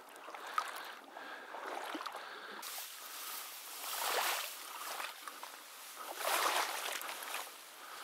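Small boat moving by strokes through shallow water and dense grass and reeds. Water and stems swish against it, swelling and easing about every two to three seconds, with a single click about half a second in.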